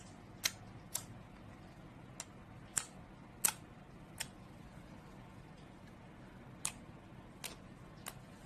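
Slime being pressed and worked by hand, giving off about ten sharp, irregular clicks and pops as air pockets in it burst.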